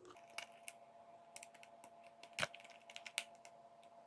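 Faint, irregular plastic clicks and taps from fingers and nails working around the edge of an LG phone's plastic back cover, trying to find a spot to pry it off, over a faint steady hum.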